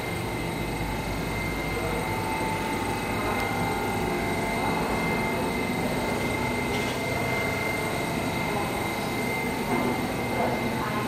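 Passenger train running slowly past on departure, a steady rumble of wheels and running gear with a steady high whine on top.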